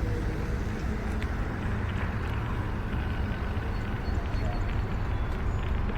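Steady low rumble of an idling vehicle engine, with general outdoor traffic noise.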